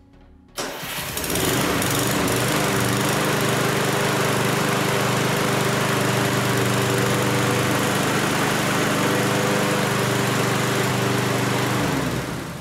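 A new, freshly fuelled Toro Super Recycler (21387) push mower's gas engine starts suddenly about half a second in and settles into a loud, steady run. Near the end it is shut off and winds down.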